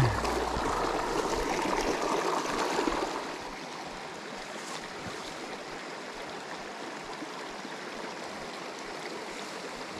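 Water of a tiny rocky creek running and trickling over stones, louder for about the first three seconds, then a steady, quieter babble.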